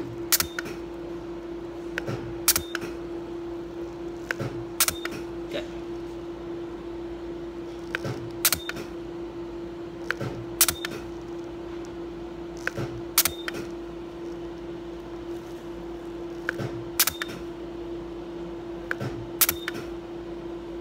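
Candela GentleYAG Nd:YAG laser handpiece firing pulses during hair removal on the chin: a sharp click about every two to two and a half seconds, several with a fainter click just before, over a steady hum. The laser pulses come with a burst of cryogen cooling spray.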